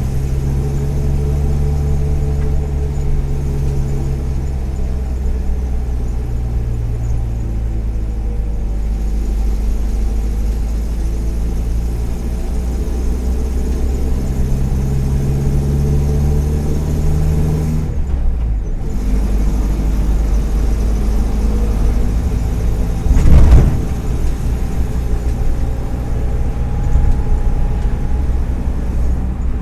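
Volkswagen EA111 1.4-litre four-cylinder engine of a Kombi van pulling under way, its pitch sinking, then climbing again before a brief drop about two-thirds of the way through, like a gear change. Two loud short thumps, one near the end. The engine runs on worn spark plug wires and a worn ignition coil that make it misfire now and then.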